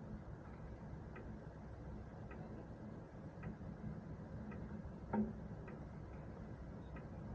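Faint, regular ticking about once a second over a low steady rumble, with one louder knock about five seconds in.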